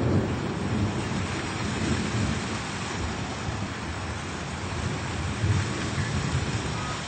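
Steady rain with rolling thunder: a low rumble that is loud at the start, fades over the first few seconds, and swells again briefly about five seconds in.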